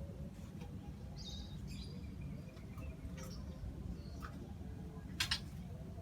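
Birds chirping: scattered short chirps, with a louder double chirp about five seconds in, over a steady low rumble.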